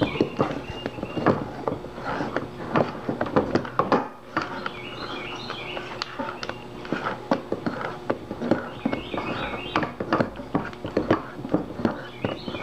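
Spatula knocking and scraping against a stainless steel mixing bowl while banana batter is folded into beaten egg whites, in a run of irregular knocks and scrapes. A short series of high chirps recurs a few times in the background.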